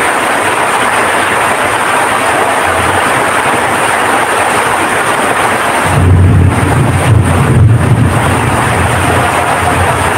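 Heavy rain pouring down with a steady, loud hiss. About six seconds in, a deep, uneven rumble joins it and gets louder.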